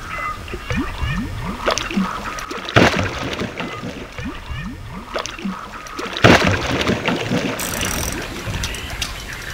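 A pike striking a surface lure: water splashing, with two loud splashes about three and six seconds in and smaller slaps and gulps between them.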